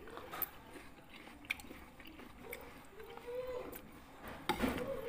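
People chewing mouthfuls of fresh fruit salad at close range, with soft wet chewing and a few small clicks scattered through.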